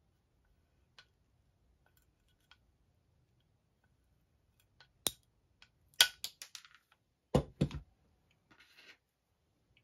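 Anvil miter shears snapping through a small round wooden dowel with one sharp crack about halfway through, followed by a quick run of light clicks. Two dull knocks come as the shears are set down on the cutting mat, then a brief rustle.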